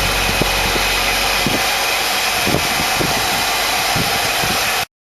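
Lathe running with a 100 mm chuck fitted with welded-on round jaws that have slight runout, a steady machine noise with a few short knocks or scrapes scattered through it. The sound cuts off abruptly near the end.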